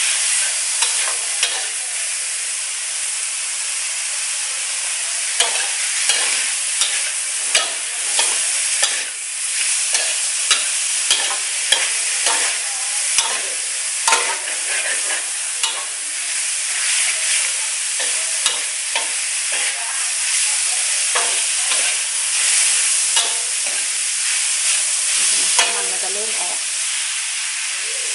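Diced pork belly sizzling in oil in a metal wok as it is stir-fried. A metal ladle scrapes and clicks against the pan, in many short strokes over a steady hiss.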